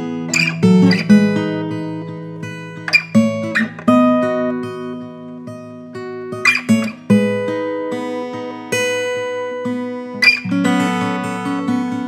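GWG Black MAHO 00, a small-bodied mahogany acoustic guitar, played fingerstyle: ringing chords and melody notes, with sharp strummed accents every few seconds.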